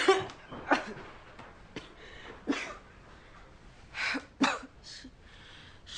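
A young boy coughing repeatedly, about half a dozen short, harsh coughs, as he chokes on cigarette smoke.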